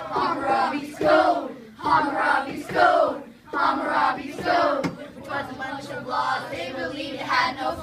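A class of children singing loudly together in unison, in short phrases about a second apart, softer in the last few seconds.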